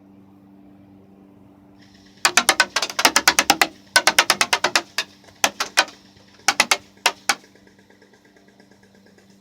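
Airsoft HK416 rifle firing in rapid bursts of sharp shots, starting about two seconds in, several strings of fire and then a few single shots, stopping about two seconds before the end. A faint steady hum runs underneath.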